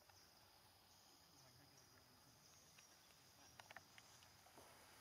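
Near silence: faint forest ambience with a steady high-pitched insect drone, and a few faint clicks about three and a half seconds in.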